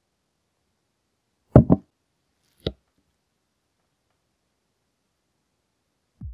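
Two sharp knocks in quick succession, then a single lighter knock about a second later, against silence.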